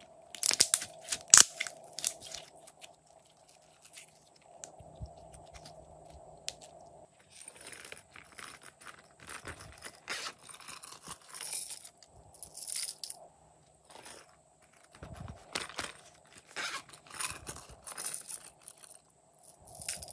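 Glossy slime squeezed in the hands, crackling and popping loudly for the first couple of seconds; then irregular clicks and crackles as small plastic cases and slime add-ins are handled.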